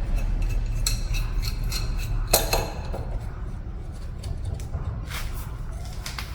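Scattered metallic clicks and clinks of tools and suspension parts being handled, the sharpest about two and a half seconds in, over a steady low hum.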